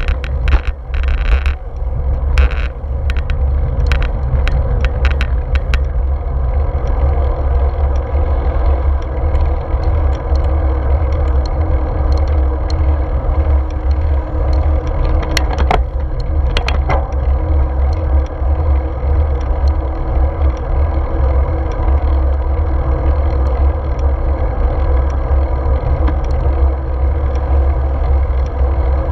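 Wind rumbling over the microphone of a handlebar-mounted action camera on a moving road bike, with tyre and road noise underneath. Sharp clicks and rattles from the bike over bumps come in a cluster in the first few seconds and twice more about halfway through.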